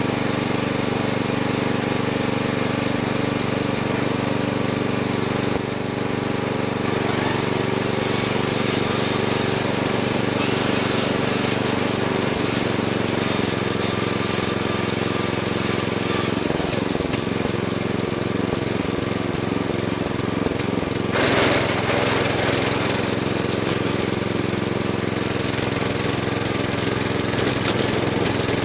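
Riding lawn mower engine running steadily, heard up close from a camera bolted to the mower's hood as it drives. The engine pitch wavers a little past halfway, and a brief burst of noise comes about three-quarters of the way in.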